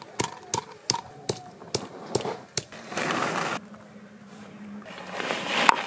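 Stone pestle pounding peeled garlic cloves on a flat stone grinding slab: sharp knocks about two or three a second for the first couple of seconds. It is followed by rough scraping as the cloves are ground against the stone, with one more sharp knock near the end.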